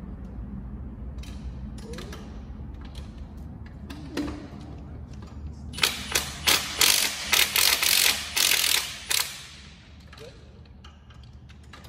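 Ratchet wrench clicking in quick runs for about three seconds, starting about halfway through, while a bolt is undone.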